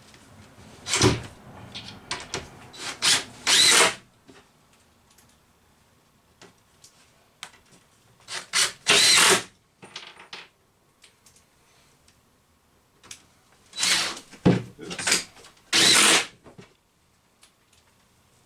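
Power drill driving drywall screws in short bursts of whirring. There are three groups of runs, each a few brief spurts ending in a longer one, with pauses between the groups.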